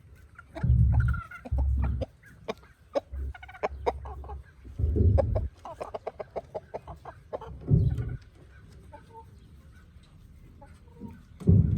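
A flock of backyard chickens clucking, with many short calls throughout. Several short, low rumbles on the microphone stand out as the loudest sounds.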